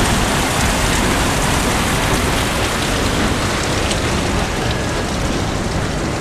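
Paddle steamer's paddlewheel churning and splashing water, a dense, steady rushing with scattered drips, easing slightly near the end.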